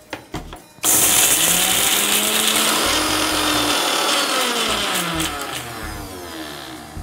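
Electric mixer grinder (mixie) with a small steel jar, switched on sharply about a second in after a couple of clicks, running loud while it wet-grinds ginger, garlic, green chillies, coriander, curry leaves and fennel into a paste. The motor's pitch rises and sags as it works, and the sound eases off near the end.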